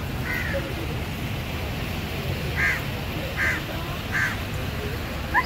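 Four short animal calls, the last three under a second apart, over a steady low background rumble; a louder, wavering call begins right at the end.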